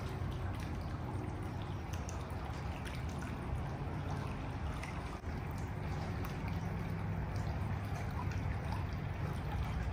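Steady rush of flowing stream water with a deep rumble underneath, fading in at the start.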